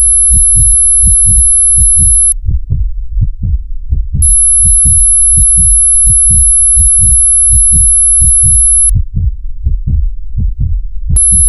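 Heartbeat sound effect: regular low thumps, about three a second, over a steady low hum. A thin high ringing tone with faint ticking sits above it and cuts out twice, for about two seconds each time.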